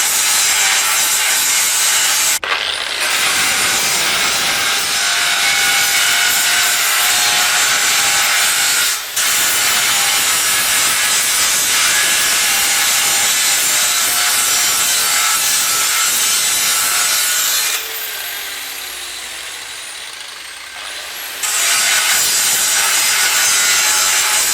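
Iron being cut: a steady, harsh grinding-cutting noise with short breaks about two and nine seconds in. Near the end it eases off for a few seconds with a falling whine, then picks up again at full strength.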